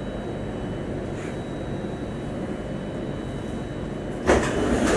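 Steady low rumble of an MRT train running, heard from inside the carriage. About four seconds in, a sudden, louder rushing noise joins and holds.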